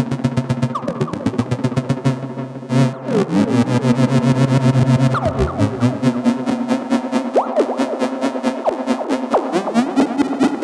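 Novation Bass Station 2 analogue synthesizer droning with its envelopes retriggering in a loop, so the sustained tones pulse rapidly and evenly, several times a second. Tape-echo effect adds sliding, echoing pitch glides, and about three seconds in the sound shifts and the pulsing grows louder.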